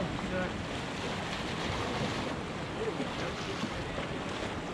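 Sea waves washing against the boulders of a rock jetty, with wind on the microphone: a steady, even rush of surf.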